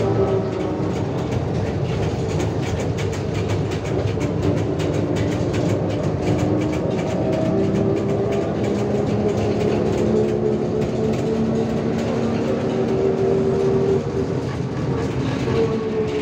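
Inside a moving trolleybus: the electric traction drive whines in several tones that shift in pitch with speed, over steady road and tyre noise, with light rattling from the body in the first half.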